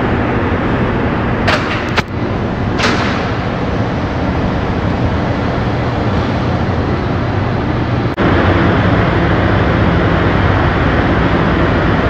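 Steady loud rumble of a ferry's machinery filling the enclosed steel car deck, with a few short sharp clanks between about one and a half and three seconds in. The rumble gets a little louder about eight seconds in.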